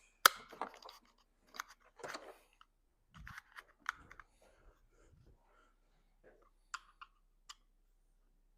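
Scattered clicks and light rattles of small parts and hand tools being handled while a chainsaw's recoil starter is taken apart to restring its pull cord, with one sharp click about a quarter second in.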